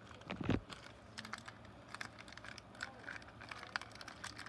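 Fingers handling and picking open a small plastic bag of Connect 4 game discs, making a run of small crinkles and sharp clicks. There is a dull thump about half a second in.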